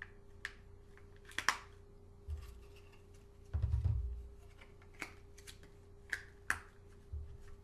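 Small clear plastic boxes and putty mold halves being handled: a scattered series of light plastic clicks and taps, with dull low bumps about two and three and a half seconds in. A faint steady hum runs underneath.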